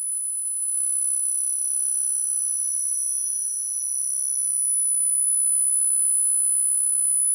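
Electronic sound art played from laptops: several steady high-pitched sine tones held together, with nothing in the low or middle range beneath them.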